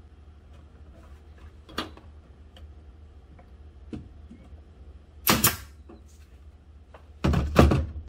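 Brad nailer-stapler driving staples into the corners of an HDO plywood feeder rim: two loud sharp double bangs, one just past the middle and one near the end, with a light click of the wood pieces before them.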